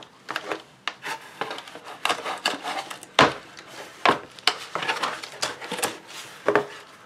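Folding knife cutting through packing tape and corrugated cardboard, with the cardboard flaps being handled: a run of irregular scraping strokes, the loudest about three seconds in.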